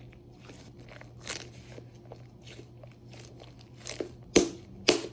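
A large, sticky squishy toy squeezed and worked in the hands, making soft crackling and crunching, with a few sharper snaps near the end.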